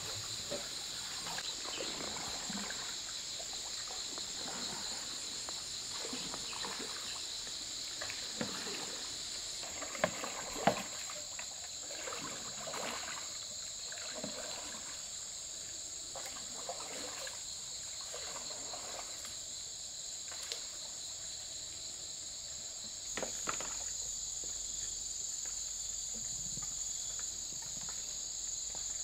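Steady high-pitched insect buzzing, with the soft sloshing and trickling of a bamboo raft being poled through water and a few sharp wooden knocks, the loudest about ten seconds in.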